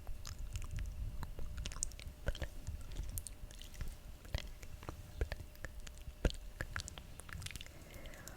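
Close-miked ASMR mouth sounds: an irregular run of wet clicks and smacks from the lips and tongue, with one sharper click about six seconds in.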